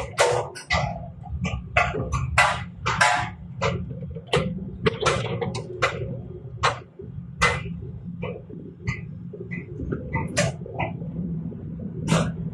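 Hitachi excavator's diesel engine running steadily under a series of irregular sharp clanks and scrapes, more than a dozen in quick, uneven succession.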